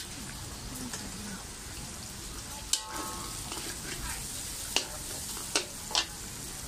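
Pad thai frying with a steady sizzle in a large metal wok, stirred with a metal spatula and ladle. The utensils clank sharply against the wok a handful of times, the first clank ringing briefly, a little under three seconds in.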